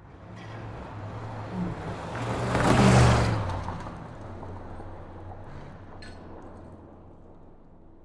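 Sports car speeding past. Its engine and road noise build up, peak about three seconds in, then fade as it drives away.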